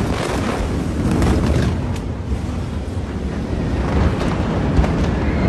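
The 2020 Beirut port ammonium nitrate explosion just after its blast wave reaches the phone: a loud, continuous low rumble with scattered sharp cracks and clatter through it.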